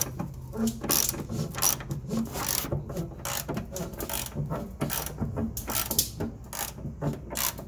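Hand ratchet wrench clicking in quick, irregular runs as bolts are run up and tightened, over a steady low hum.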